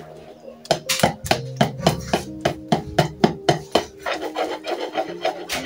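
Wire whisk beating thick banana bread batter in a bowl by hand: a run of sharp clattering strokes, about four a second, then softer, quicker scraping near the end.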